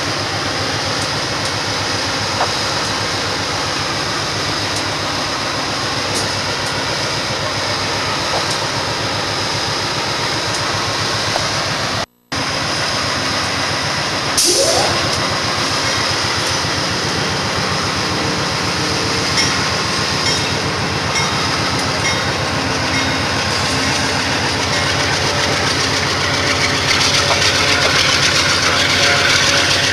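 Amtrak GE Genesis P42DC diesel locomotive running steadily as it slowly pulls its train away, a mix of engine drone and whine. The sound drops out for a moment about twelve seconds in, and a sudden short burst of noise comes a couple of seconds later. It grows louder near the end as the train rolls past.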